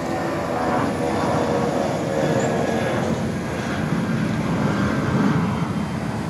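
Jet engines of an Airbus A320 airliner at takeoff thrust as it climbs away: a steady, loud jet noise that swells slightly now and then.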